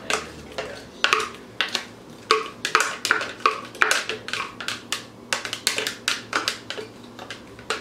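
A kitchen utensil knocking and scraping against a plastic blender jar and a bowl while blended vegetable paste is emptied out and mixed: a string of irregular sharp clicks, several a second.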